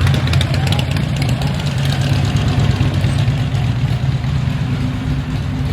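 Motorcycle engine idling steadily and loudly close by, with a fast mechanical ticking in about the first second.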